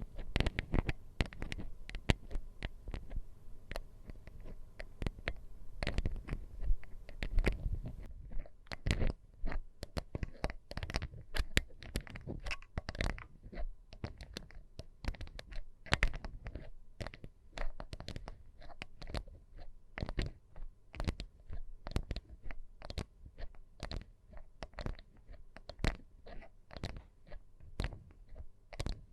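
Rapid, close-miked ASMR tapping and crunchy scratching right against the microphone. A dense patter of quick taps for the first several seconds gives way to sparser, separate taps.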